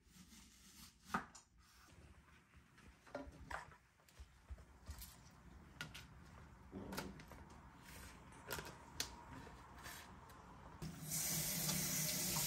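Kitchen work: scattered light knocks and clicks, then a kitchen tap runs in a steady rush for about two seconds near the end.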